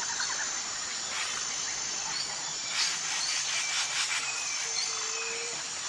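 Outdoor ambience: a steady high insect drone over a hiss, with a few faint short bird chirps.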